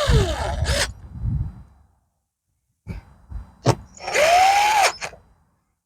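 Cordless drill/driver making two short runs as it drives the generator's side-panel screws back in. The first run winds down in pitch and the second spins up, with a few knocks between them.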